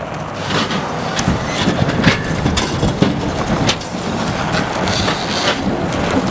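A four-wheel-drive vehicle's engine pulls a wooden ice shack on runners over snow and ice, with a steady low rumble and irregular knocks and clatter from the shack's frame and runners.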